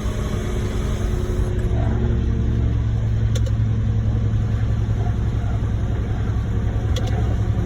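Heavy diesel engine running steadily, its low hum picking up a little about two seconds in.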